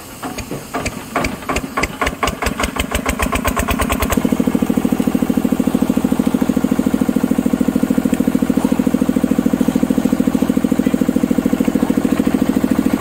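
Engine of a trailer-mounted hydraulic log splitter starting up: its firing comes faster and faster for about four seconds, then it settles into steady, fast-pulsing running.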